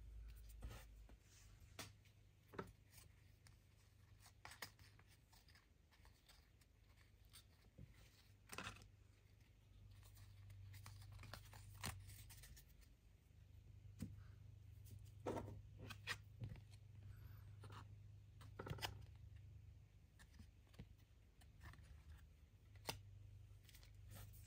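Quiet rustles, slides and soft taps of trading cards being flicked through in the hands and set down on a wooden table, coming irregularly every second or two.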